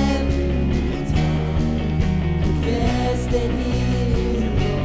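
Live worship band music: electric guitars, bass and drums playing a steady rock-style accompaniment, with a woman's voice holding long sung notes over it.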